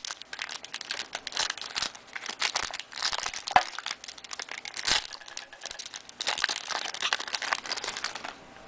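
Crinkling and tearing of a Fleer Ultra basketball card pack's wrapper as it is opened, with quick rustles and clicks of the cards being handled. It quiets near the end.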